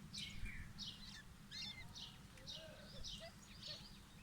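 Partridge chicks giving short, high chirping calls in quick succession, about two or three a second, while they fight.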